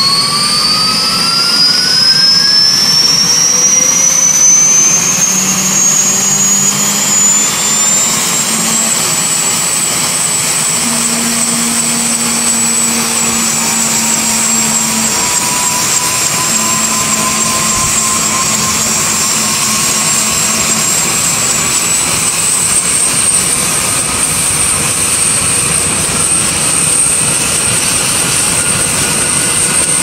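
Bell UH-1H Huey's turboshaft engine spooling up at start: a high whine rising in pitch over the first nine seconds or so, then holding steady, with a second, lower whine climbing slowly later on.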